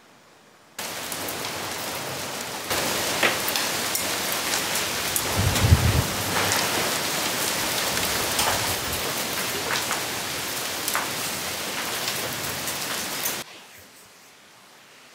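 Heavy rain pouring down, a dense hiss dotted with patters and drips. It starts abruptly about a second in and gets louder a couple of seconds later, with a short low rumble about six seconds in. It cuts off suddenly near the end.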